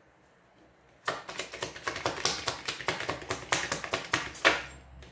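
A tarot deck being shuffled by hand: a quick run of crisp card clicks and slaps, about six a second, starting about a second in and stopping shortly before the end.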